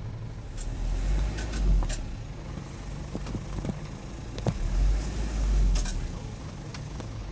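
Car engine running steadily at low speed with road noise. Two louder low rumbles swell up, about a second in and again about four and a half seconds in, and there are a few short clicks.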